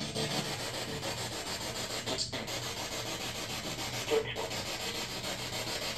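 Steady hissing, scratchy noise with a fine, fast flutter, dropping out for a moment about two seconds in.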